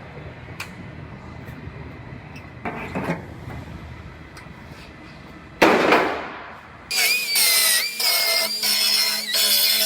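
A few light knocks and clatters of bodywork handling, then a loud rushing burst that fades away over about a second. Background music with whistle-like gliding tones cuts in about seven seconds in.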